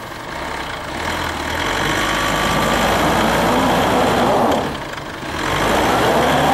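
Pickup truck engine pulling under load as it tows a stuck van through snow on chained tyres. The engine builds from about a second in, eases off briefly near the five-second mark, then pulls again.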